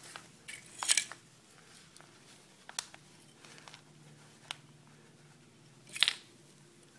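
A knitted cloth towel rustling and rubbing as hands wrap it around a bowl, with a louder rub about a second in and another about six seconds in, and a few small clicks between.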